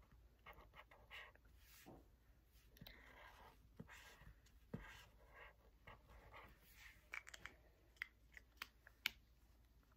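Faint scratching of a pen drawing over lines on paper, followed by a few light clicks near the end as the pen is handled.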